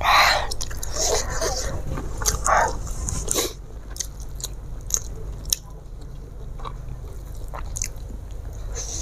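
Close-miked chewing and mouth clicks of a person eating, with a few short breathy mouth sounds in the first three seconds, quieter after that.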